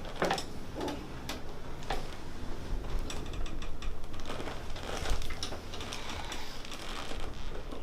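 Light mechanical clicks and rattles, some in quick runs, from a chiropractic treatment table and the handling during an adjustment.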